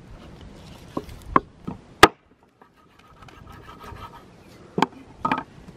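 Knife cutting raw lamb on a wooden cutting board, the blade knocking against the board about six times, loudest about two seconds in, with soft scraping between the knocks.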